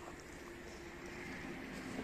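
Shiba Inu gnawing on a boiled chicken carcass, with a few faint crunching clicks.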